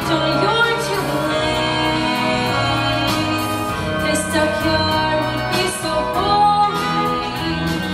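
A stage-musical song: voices singing over instrumental accompaniment.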